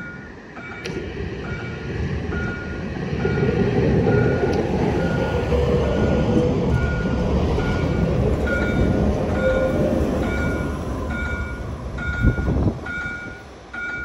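Gothenburg tram passing close by: the rumble of its wheels and running gear builds, holds with a faint wheel squeal, then dies away near the end, with a single knock shortly before it fades. A short electronic beep repeats about twice a second throughout.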